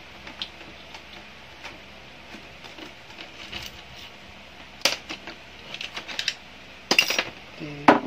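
Scattered light clicks and taps of plastic and metal parts as a laser printer is being taken apart by hand, with a sharper click about five seconds in and a cluster of clicks near the end.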